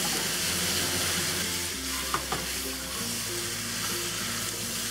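Tofu, snow peas and oyster mushrooms sizzling in a hot oiled wok while being stir-fried with a spatula, with a couple of sharp clicks about two seconds in.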